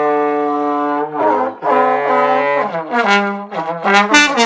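Trombone played loudly: one long held note, then a series of shorter notes stepping up and down in pitch, more broken up near the end.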